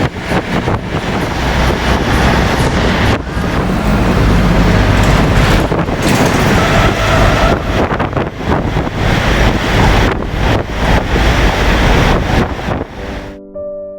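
Wind buffeting the microphone over a loud, steady rushing noise. Near the end this cuts off suddenly and a few steady held tones take over.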